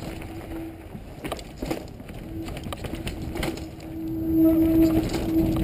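Mountain bike descending a dirt trail at speed: tyres rumbling over the dirt and the bike rattling and knocking over bumps, with the steady buzz of the freewheeling rear hub while coasting. It gets louder about four seconds in.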